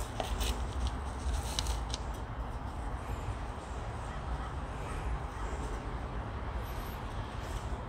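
Hands pushing gritty bonsai soil mix into a terracotta pot, with a few sharp gritty clicks in the first two seconds, over a steady low outdoor rumble.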